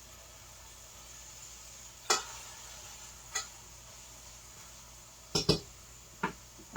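Several short sharp clinks of a cooking utensil against a pan, over a faint steady sizzle of food frying.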